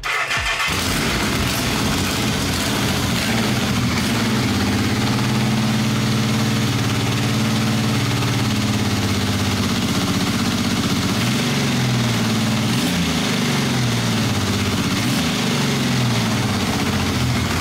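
A 1981 Yamaha XS850's air-cooled three-cylinder engine catches right at the start and then idles steadily. Its three carburettors are not yet in sync: the third cylinder is pulling a little extra vacuum.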